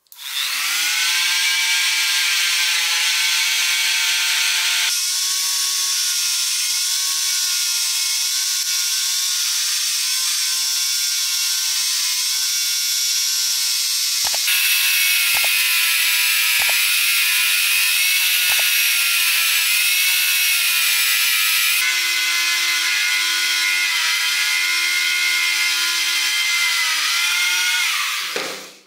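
Handheld rotary tool with a sanding drum spins up and runs at high speed with a steady whine, grinding the rust off a small metal screw held against it. The grinding note shifts a few times, four sharp clicks come about halfway through, and the tool winds down at the end.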